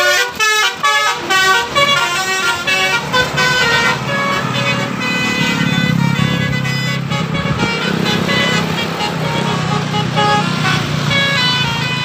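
Tourist bus's 'telolet' musical horn playing a quick run of changing notes as the bus passes. The notes are loudest in the first couple of seconds. A low engine and traffic rumble builds from about a third of the way in.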